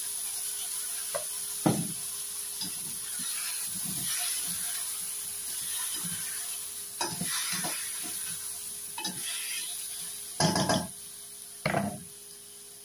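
Chicken pieces and onion sizzling in a stainless steel wok as they are stirred and turned with a utensil, the stage of sautéing the chicken. Scrapes and knocks of the utensil against the pan come at intervals, the two loudest near the end.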